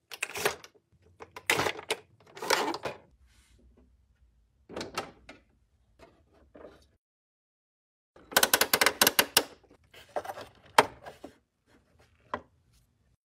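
Hard plastic parts of a vintage Millennium Falcon toy clicking, snapping and clattering as they are handled, in short bursts with pauses between, and a longer dense rattle about eight seconds in.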